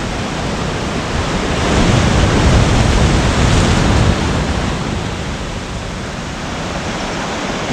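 Sea surf washing against the rocks of a breakwater: a steady rush of water that swells about a second and a half in and eases off again after a few seconds.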